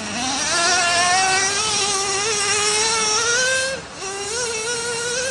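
Traxxas Revo 3.3 nitro RC truck's small two-stroke glow engine running at high revs. Its pitch climbs steadily for several seconds, dips briefly just past the middle as the throttle eases, then rises again.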